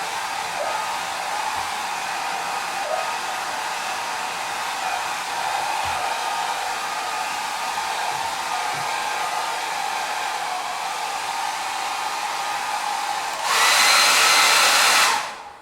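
Hair dryer blowing steadily, a rush of air with a motor whine under it. Near the end it turns abruptly louder and brighter, then switches off and winds down to silence.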